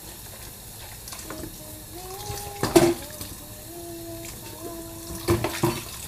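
Dishes being washed by hand in a stainless steel sink with the tap running, with sharp clatters of dishes about three seconds in and again near the end. A woman hums a slow tune in long held notes.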